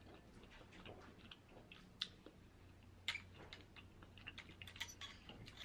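Faint scattered clicks and taps of a metal fork picking among clams in their shells on a platter, with soft chewing; the sharpest taps come about two and three seconds in.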